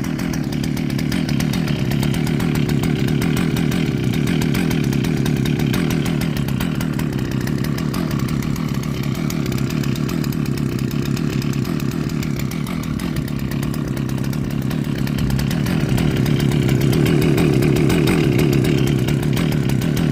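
Husqvarna 162 SE two-stroke chainsaw engine running steadily at an even speed, without revving.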